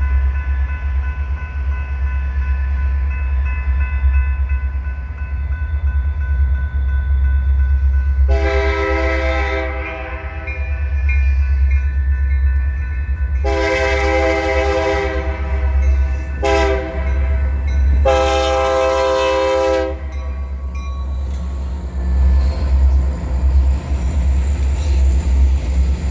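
Diesel locomotive air horn sounding the grade-crossing signal, long, long, short, long, over the steady low rumble of the train's diesel engines.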